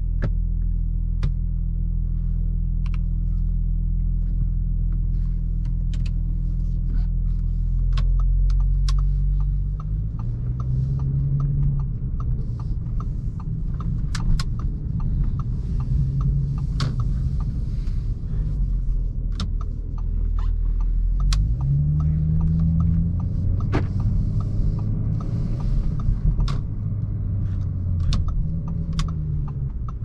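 A 2018 Audi S4's 3.0-litre supercharged V6, heard from inside the cabin, idles steadily at first. About nine seconds in the car pulls away, and the engine note rises in pitch and drops back several times as it accelerates through the gears of the automatic. Small clicks and creaks from the cabin are scattered throughout.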